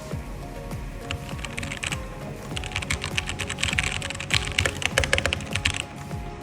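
Keys being typed on a Portronics Hydra 10 mechanical keyboard with red (linear) switches: a fast run of key clacks that starts sparse and grows dense from about two and a half seconds in until near the end.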